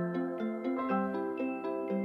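Gentle instrumental background music: a steady run of plucked notes, about four a second.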